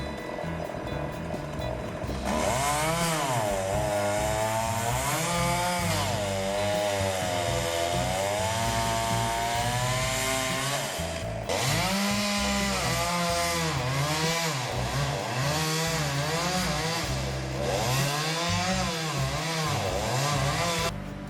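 Chainsaw engine cutting wood, its pitch repeatedly sagging and climbing again as the chain bites and frees in the cut. There is an abrupt break about eleven seconds in.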